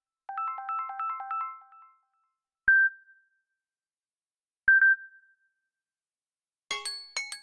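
Samsung Galaxy S20 ringtones: a fast repeating electronic melody of short bright notes that stops about two seconds in, then two single high pings two seconds apart. Near the end a different ringtone starts with quick struck notes.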